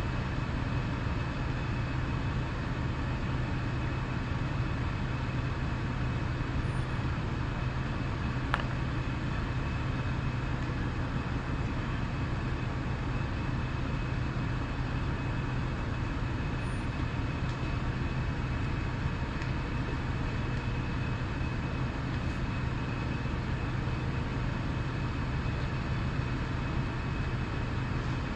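Fire engines running at a fire scene, a steady low engine hum with a faint high whine over a wash of noise. One sharp click about eight and a half seconds in.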